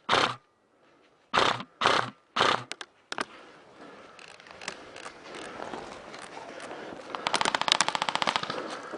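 Airsoft guns firing: scattered single shots, then a rapid full-auto burst of clicking shots lasting over a second near the end, over the rustle of the player moving through undergrowth.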